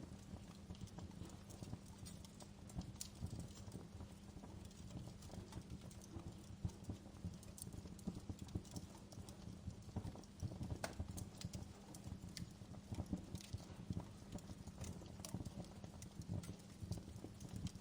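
Wood fire crackling in a fireplace: irregular snaps and pops over a low, steady rumble of the burning fire.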